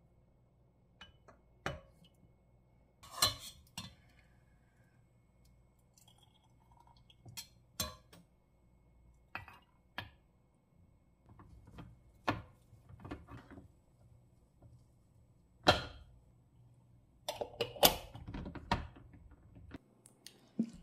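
Kitchen utensils and dishes clinking and knocking together: irregular single clinks and taps, some ringing briefly, with a quicker flurry of them near the end.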